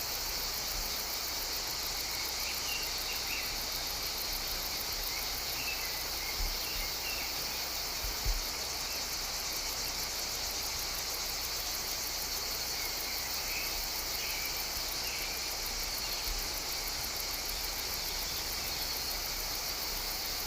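Steady chorus of insects, a high-pitched trill with a very fast pulse, with a few faint chirps over it. Two brief low bumps break in, a small one about six seconds in and a stronger one about eight seconds in.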